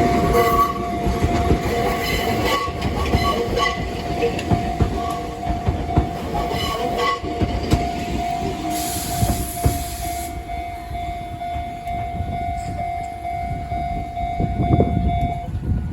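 Enoden (Enoshima Electric Railway) train running through the level crossing at Enoshima station, its wheels clacking over the rail joints. The crossing bell rings over it with a steady tone that stops near the end, and there is a short hiss about nine seconds in.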